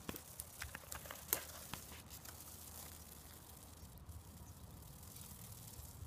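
Light crackling and rustling of dry leaves and stems: a string of short sharp crackles in the first two seconds, the loudest a little over a second in, then only faint rustle.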